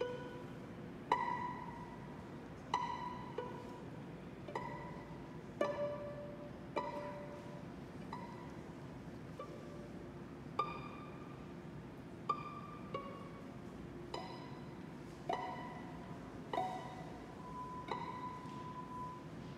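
Violin and viola duo playing sparse, separated notes, mostly plucked pizzicato, each starting sharply and fading, about one every one to two seconds, with a longer held note near the end.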